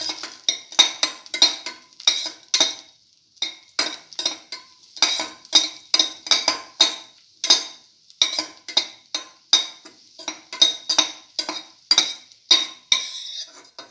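A spoon stirring raisins frying in oil in a stainless steel pan, scraping and clinking against the pan in quick repeated strokes, about two or three a second, with a brief pause about three seconds in.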